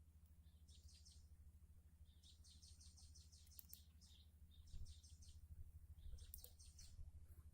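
Faint bird calls: several short runs of rapid, high-pitched chirps, with a longer run of quick repeated notes a couple of seconds in, over a steady low hum.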